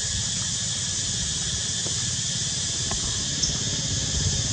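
Steady outdoor background hiss with a low rumble underneath, and a faint tick about three seconds in.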